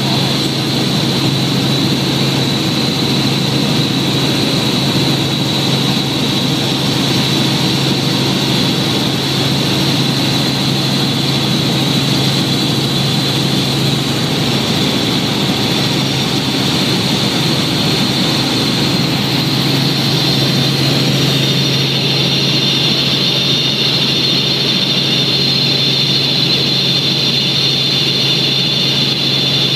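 Steady cabin noise of a light helicopter in cruise flight, heard from inside the cockpit. Engine and rotor drone under a low hum, with a high whine that drops slightly in pitch about two thirds of the way through.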